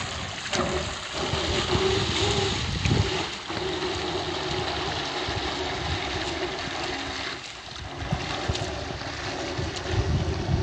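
Wind buffeting the microphone over a faint steady motor hum from a small remote-controlled boat running out across the water, towing a fishing net.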